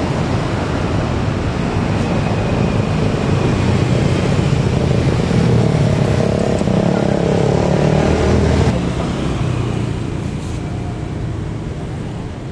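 Boeing 737-900ER's CFM56 turbofan engines running at taxi power as the airliner rolls past: a steady jet rumble with a faint whine, swelling to a peak and then dropping suddenly about nine seconds in, fading after that.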